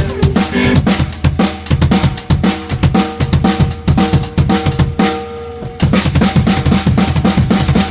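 Band music driven by a drum kit, with kick, snare and cymbals over bass and guitar notes, in a steady rhythm. It drops out briefly about five seconds in, then the full kit comes back in.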